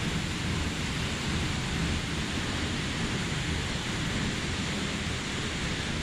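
Steady noise of a waterfall and running water, even and unbroken.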